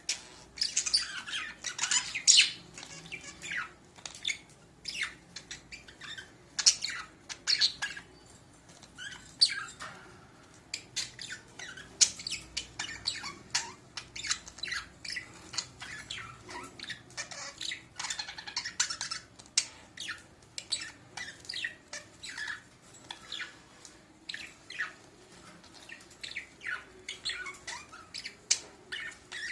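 Budgerigars chattering: quick runs of short, sharp chirps and squawks with brief pauses between them, from a breeding pair of budgies.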